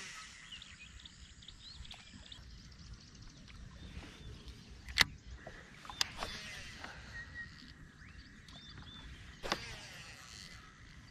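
Birds chirping around the water, with a low wind rumble on the microphone. A few sharp clicks come about five, six and nine and a half seconds in.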